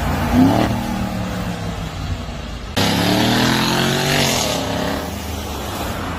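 Mercedes-Benz GLS500 (X166) twin-turbo V8 accelerating through an aftermarket valved cat-back exhaust with sport resonator. A short rev about half a second in, then a sudden louder surge near three seconds that climbs in pitch and fades as the car pulls away.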